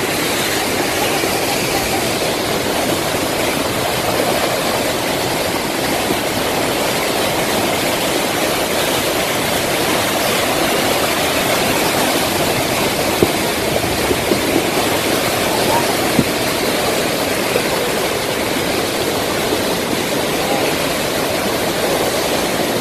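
Muddy water cascading down a steep hillside and running across a road in a steady rush, with a few faint clicks in the middle. One report puts the water down to a leak in a drinking-water main rather than rain.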